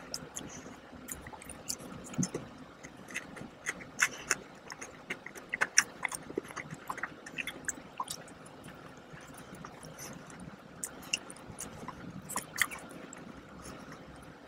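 Close-miked eating of a soft donut: biting and chewing with irregular wet mouth clicks and smacks, thickest in the middle and again near the end.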